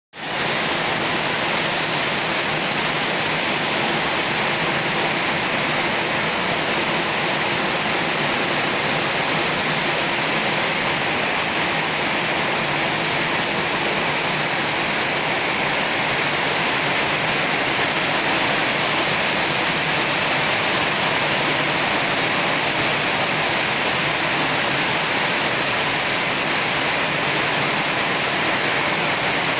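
Heavy typhoon rain pouring down steadily in an even, unbroken downpour.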